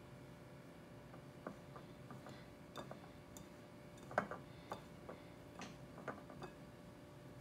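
Hands mixing and rubbing coarse wheat flour and oil in a glass mixing bowl: faint, irregular light clicks and taps against the glass, the loudest about four seconds in.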